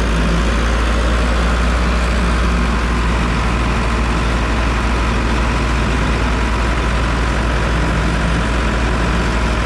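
Diesel engine of a Farmtrac tractor running steadily with a deep rumble.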